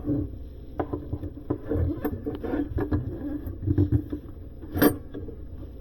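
Hands working with tubing and fittings: irregular clicks, knocks and rustling, with one sharper knock a little before the end.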